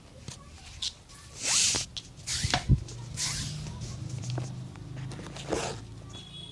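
A cobbler working a leather shoe by hand: several short swishing strokes and a sharp click about two and a half seconds in, over a low steady hum.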